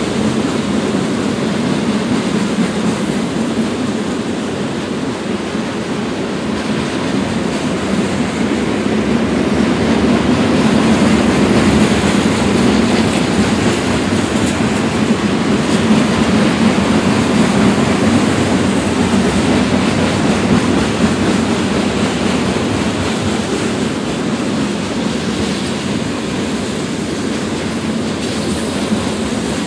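Freight train's tank cars and covered hoppers rolling across a concrete bridge: steady noise of steel wheels on the rails with clickety-clack, swelling slightly in the middle.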